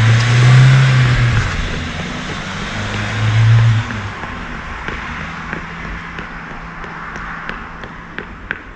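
A van engine accelerating away, its note surging at the start and again about three seconds in, then fading steadily with the road noise as the van pulls into the distance.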